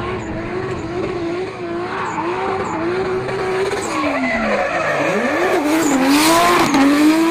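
Drift car sliding sideways with its tyres skidding and squealing while the engine is held high in the revs. About five seconds in the engine note drops sharply and climbs back, and the tyre hiss is loudest shortly after.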